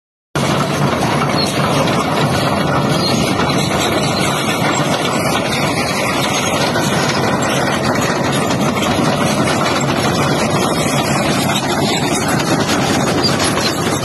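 Kobelco SK210 20-ton tracked excavator's diesel engine running steadily as the machine works its boom and loaded bucket, a loud, even, unbroken sound.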